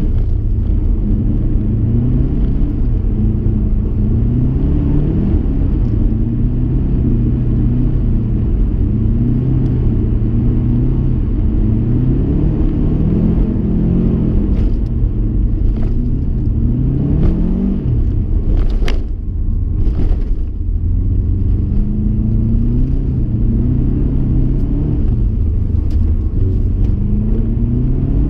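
Subaru Impreza STi's turbocharged flat-four engine heard from inside the cabin, revving up and dropping back again and again as the car is driven hard on an ice track. A couple of sharp clicks come a little past halfway, where the engine briefly eases off.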